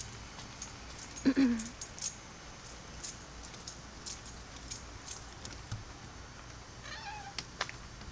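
A cat meowing: one loud meow falling in pitch about a second in, and a shorter, fainter one near the end, with light clicks of footsteps on wet gravel between them.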